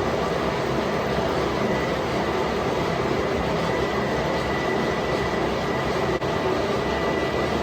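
Metal lathe running while facing a hardened die: steady machine noise with a thin, steady high whine.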